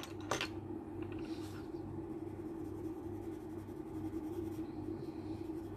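Coloured pencil rubbing on paper, shading in a drawing, with a light click just after the start and a low steady hum underneath.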